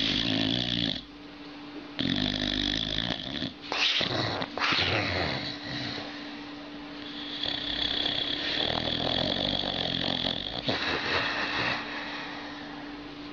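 A sleeping dog snoring and grunting in bursts of about a second each.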